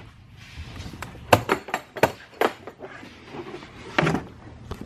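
Scattered knocks and clicks of hard objects being handled and set down while a tool battery is fetched, about eight separate taps with a louder cluster near the middle and another near the end.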